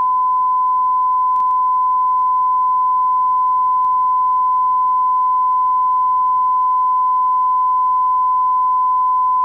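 Television test-card line-up tone: a steady 1 kHz pure tone held without a break at a constant level.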